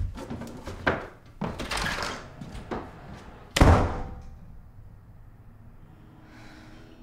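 A few thumps and knocks, then a door slammed shut about three and a half seconds in, the loudest sound, dying away over about a second.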